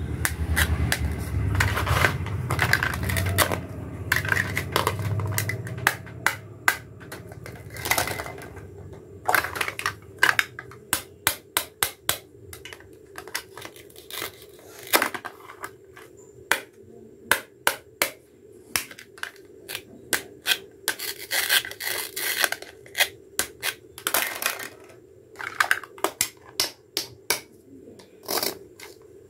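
Plastic toy fruit being handled and cut with a plastic toy knife on a plastic cutting board. For the first few seconds the pieces rub and scrape together, then come many sharp clicks and taps of plastic on plastic, with a few short scratchy rasps.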